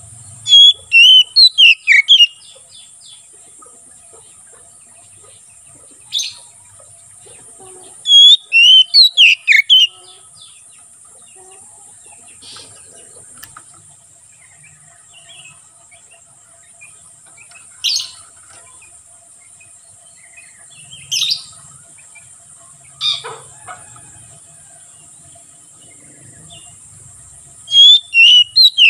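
Oriental magpie-robin singing loud bursts of rapid, sliding whistled phrases three times, with single short calls in between. A steady high buzz of insects runs underneath.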